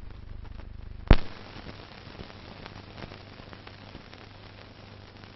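Old film soundtrack: one loud sharp bang about a second in, then faint scattered clicks and crackle over a steady low hum.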